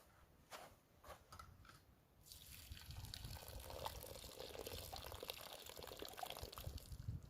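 A few light clicks, then about two seconds in a steady pouring or trickling of liquid begins.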